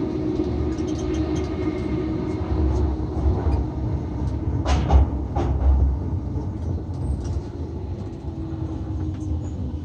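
Running noise inside a Tobu 70000 series train car on the move: a steady low rumble from the wheels and running gear with a constant hum, and a few louder knocks about halfway through.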